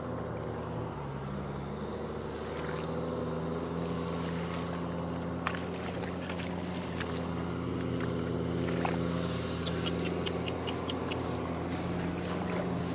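Tractor engine running steadily in the field, its pitch stepping up slightly about a second in. Occasional short wet splashes from hands working in shallow mud.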